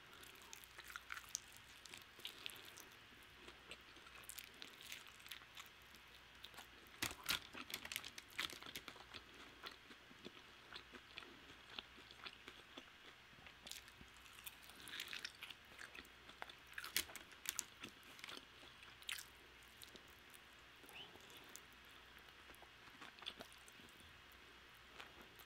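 Close-miked biting and chewing of sauced Korean fried chicken wings: irregular crunches and wet mouth clicks, the loudest crunches about seven seconds in and again around seventeen seconds.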